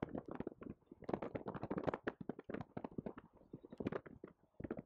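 A rapid, irregular patter of faint clicks and taps.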